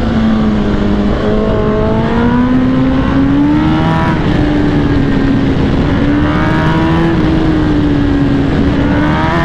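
Superbike engine running at cruising revs while riding, its note rising gently a second or so in and then wavering up and down with the throttle, over steady wind rush.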